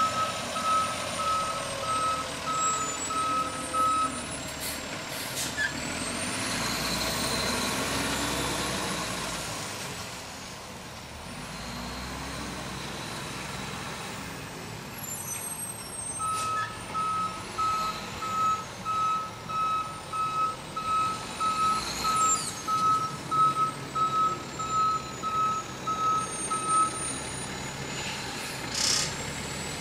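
Garbage truck backing up, its reversing alarm beeping steadily about twice a second, stopping, then starting again for about ten seconds. Between the beeping stretches the diesel engine rises and falls as the truck moves off. A short hiss near the end fits an air-brake release.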